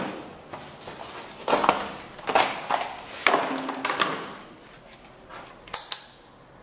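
Rummaging through a cluttered plastic toolbox: hard plastic items clattering and knocking in several bursts. Near the end come a few sharp clicks as a digital multimeter's rotary dial is turned.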